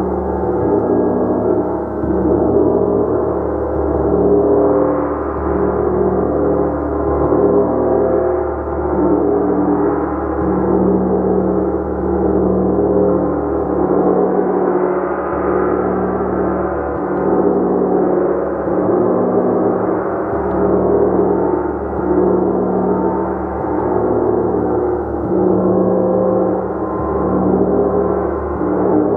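A large gong played continuously in a sustained wash, its many overlapping tones swelling and ebbing every second or two without distinct separate strikes.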